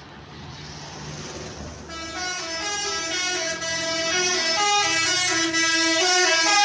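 Basuri telolet bus horn playing a tune: several horn tones at once stepping quickly up and down in pitch, starting about two seconds in and growing louder. Before it there is a low engine rumble.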